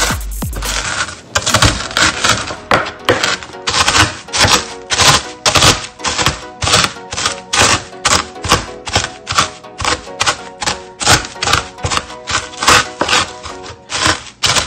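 Rolling pin crushing chicharon (fried pork rinds) in a zip-top bag on a wooden cutting board: a long run of crunching strikes, about two or three a second. Background music plays throughout.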